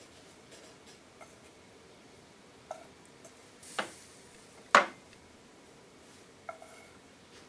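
Chopsticks and a pan clinking against ceramic bowls while food is served out: a few light clicks, a brief scrape, a sharp knock just under five seconds in, and near the end a clink that rings briefly like china.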